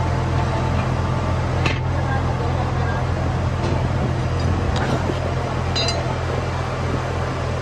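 Workshop machinery noise: a steady low machine hum with a few short metallic clinks.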